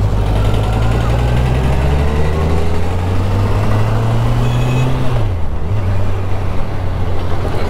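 Kawasaki Ninja 1000's inline-four engine running under way, its pitch climbing steadily as the bike gathers speed, then dropping abruptly about five seconds in and holding steady after.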